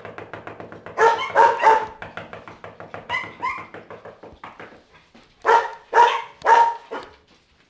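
Small chihuahuas barking at another dog in quick groups of high yaps: three about a second in, two around three seconds and three more near the end. A quieter, fast pulsing sound carries on between the groups.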